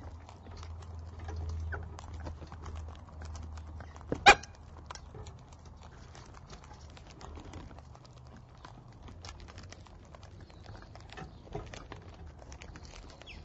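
Galahs and a sulphur-crested cockatoo pecking and cracking seed: many small irregular clicks and taps, over a steady low hum. One loud, very short sharp sound stands out about four seconds in.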